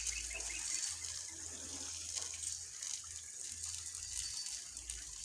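Water running and splashing steadily, a continuous hiss.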